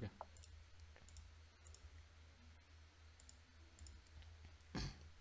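Near silence over a steady low electrical hum, with a few faint clicks at a computer desk and one short soft noise near the end.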